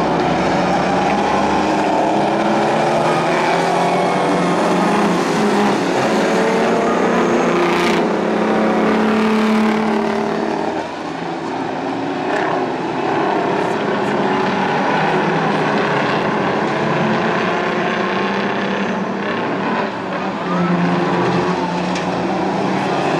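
Engines of several big-rig race trucks running and revving together, their pitch rising and falling as they lap. The sound eases briefly about eleven seconds in, then picks up again.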